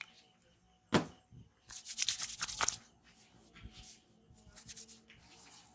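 Hands at work in a barber's massage: one sharp slap about a second in, then a quick run of brushing or patting strokes for about a second, then softer rubbing strokes.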